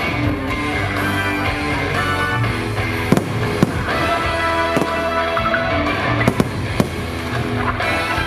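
Rock music soundtrack of a fireworks show playing steadily, with several sharp firework bangs over it, a cluster of them about six to seven seconds in.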